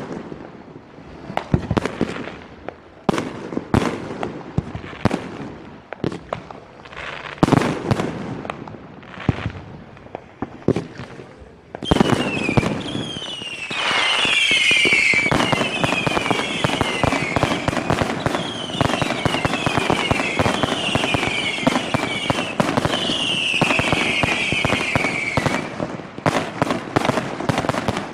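Fireworks display: separate shell bursts going off every second or so, then, about twelve seconds in, a dense barrage of crackling laced with repeated shrill falling whistles, easing back to single bursts near the end.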